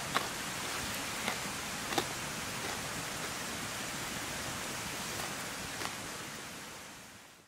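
Steady outdoor hiss, like a rushing stream or wind through the trees, with a few faint clicks, fading out near the end.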